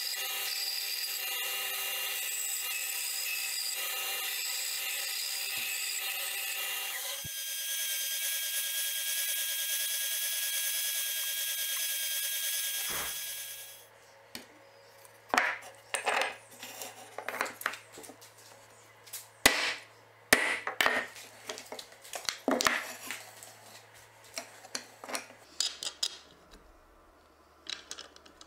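Jigsaw mounted under a table as a scroll saw, running and sawing through a small piece of pine. Its tone shifts once, and the saw stops after about thirteen seconds. Then come scattered clicks and knocks of wooden parts and small metal hardware being handled.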